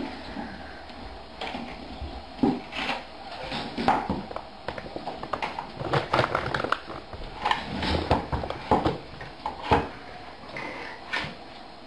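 Irregular clinks and knocks of stainless steel dog food bowls on a wooden floor, mixed with dogs moving about.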